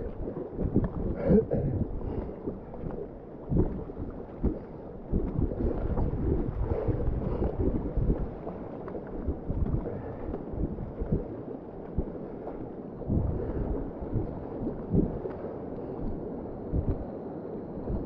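Whitewater rushing and splashing around a kayak, with irregular knocks and splashes from paddling through the rapids and wind buffeting the microphone.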